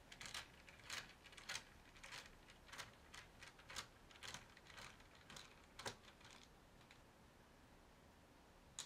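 Faint, short clicks about twice a second from a screwdriver working a screw out of a laptop's plastic chassis, dying away after about six and a half seconds, with one more click near the end.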